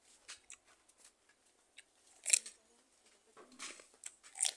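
Close-up crisp bites and chewing into a raw cucumber, with a sharp crunch about halfway through and another just before the end.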